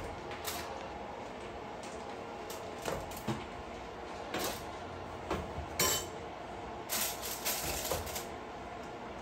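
Kitchen clatter: scattered clinks and knocks of utensils against pots and dishes, about ten separate strokes, over steady background noise.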